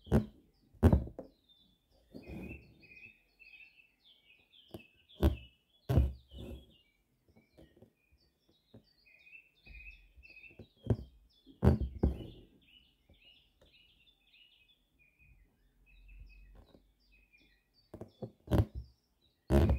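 Hand-embroidery needle punching through linen stretched taut in a hoop: sharp taps, often in pairs about a second apart, some followed by a brief rasp of thread drawn through. Small birds chirp continuously behind them.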